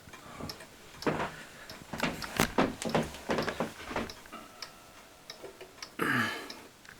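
Mechanical wall clock ticking, a run of sharp ticks.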